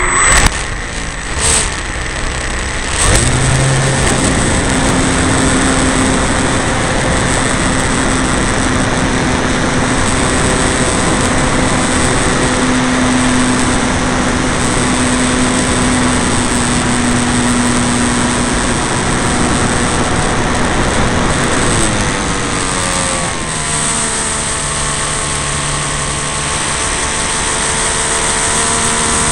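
Radio-controlled model Piper's engine, heard from a camera on the wing, throttled up a few seconds in for takeoff and running steadily at high power through the climb. Late on it is throttled back and its pitch drops to a lower steady run.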